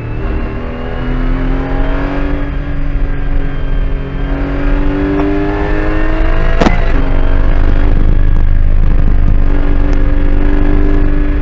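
Porsche GT4 Clubsport's flat-six engine at full throttle in sixth gear, heard from inside the cockpit, its note climbing steadily as the revs rise toward about 6,000 rpm. About two-thirds through there is a sharp knock and the pitch dips slightly, then the engine holds a steady high note.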